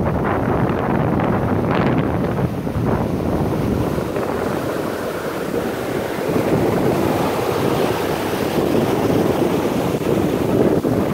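Ocean surf breaking and washing up the beach, with wind buffeting the microphone: a steady rushing noise.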